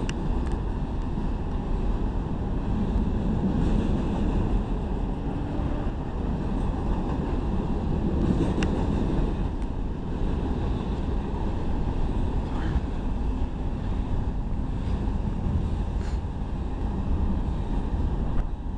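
Empty open-top hopper cars of a freight rock train rolling steadily past below: a continuous rumble of wheels on rail, with a few faint clanks. Wind buffets the microphone.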